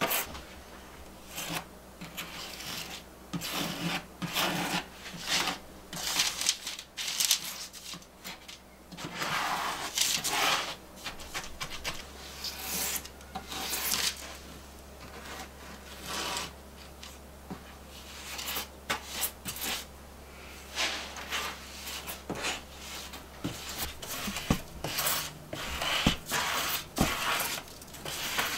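Rubber grout float scraping back and forth over freshly set tiles, working grout down into the joints: a long run of irregular rubbing strokes. A faint steady low hum sits underneath.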